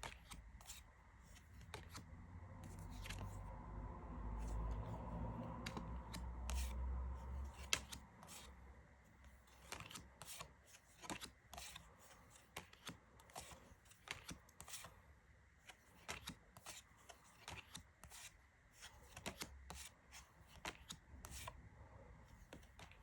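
Oracle deck cards being handled and flipped through one at a time: a scattered string of short, soft card clicks and slides. A low rumble runs between about two and eight seconds in.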